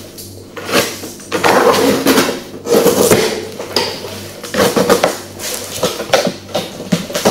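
A large cardboard box being handled on a table-tennis table: rustling and scraping of the cardboard with irregular knocks against the tabletop. The contact noise comes through a microphone lying on the same table.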